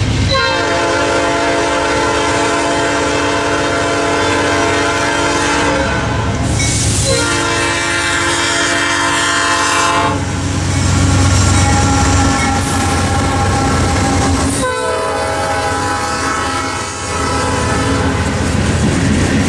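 Diesel freight locomotive horn sounding a multi-note chord in three blasts: a long one of about six seconds, another of about three seconds starting around seven seconds in, and a shorter one around fifteen seconds in. Under the horn are the low rumble of the locomotive's diesel engines passing close, loudest around eleven seconds in, and the clickety-clack of hopper car wheels over the rail joints.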